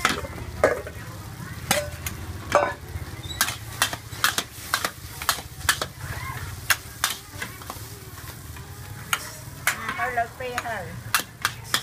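Metal ladle and spatula clanking and scraping against a wok in quick, irregular strikes while food sizzles in it during stir-frying.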